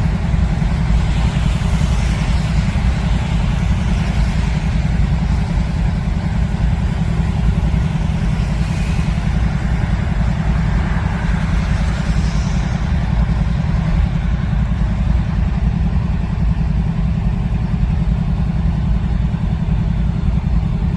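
Norfolk Southern GE wide-cab diesel locomotives running as they roll slowly past close by: a steady deep engine rumble with a hiss over it that swells and fades a few times.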